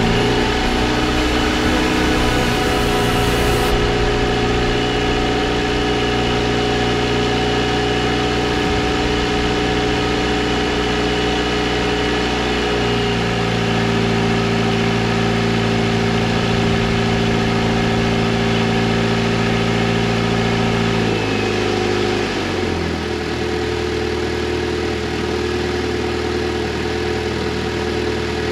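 Viking 195 Turbo liquid-cooled aircraft engine running steadily on its first start, without a propeller fitted. Its idle speed steps down about halfway through and again near the end.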